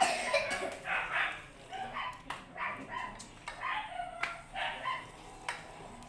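A dog yipping and whining in a string of short, high calls, about two a second, with a few sharp clicks in between.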